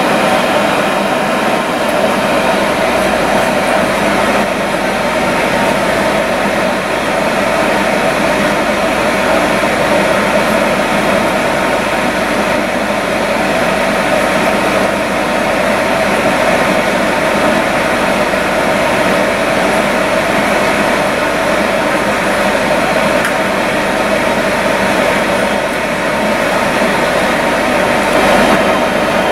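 Steady hubbub of a dense crowd, many voices talking at once and blending into an even din.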